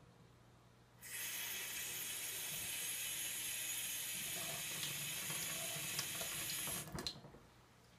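Kitchen faucet turned on about a second in, water running steadily into a stainless steel sink and over a paper towel held under the stream, then shut off near the end with a click of the handle.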